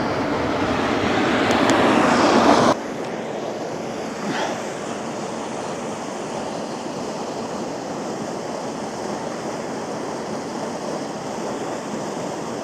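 Steady rush of river water, an even noise without a beat. It is louder for the first few seconds, then drops suddenly a little under three seconds in and runs on more quietly.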